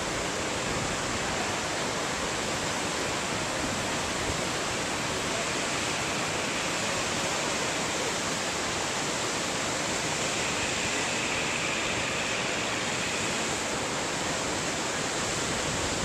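Steady rush of shallow water pouring and tumbling over rocks in a small cascade.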